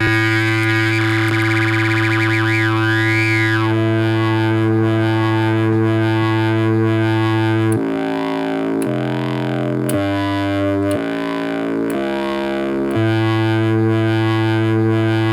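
Proton, a DIY battery-powered one-chip synthesizer (a copy of Syntherjack's Totoro), played through a little speaker. It holds one low, buzzy note with a filter sweeping up and down for about eight seconds, then steps between different notes about once a second.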